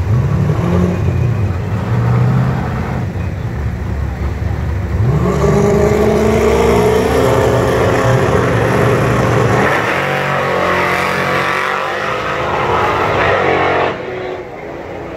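Drag race cars' engines: low running at the line, then launching about five seconds in, with the engine pitch rising as they accelerate away down the strip. The sound drops off sharply about a second before the end.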